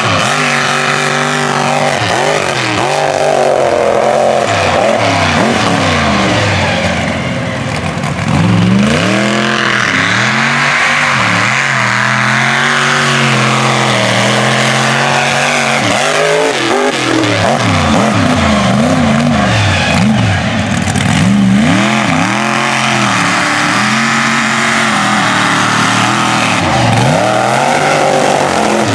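Mega truck's engine revving hard and easing off again and again as it is driven through a dirt obstacle course, its pitch climbing and dropping every second or two.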